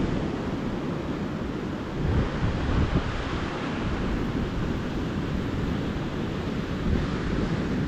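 Ocean surf washing steadily onto a beach, with low wind buffeting on the microphone.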